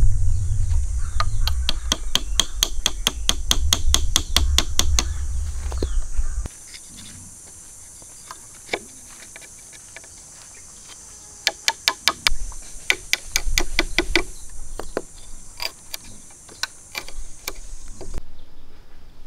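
Quick, even tapping on bamboo, about four taps a second, as pieces of a bamboo frame are pinned together; after about six seconds it drops away to a short burst of quick taps and then scattered clicks and knocks of the bamboo being handled.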